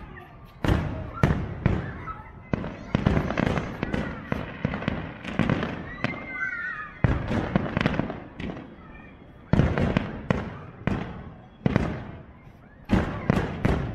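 Aerial fireworks display: shells bursting in many sharp bangs in quick succession, each one fading out. The bangs are densest in the first half, thin out briefly about six seconds in, then resume.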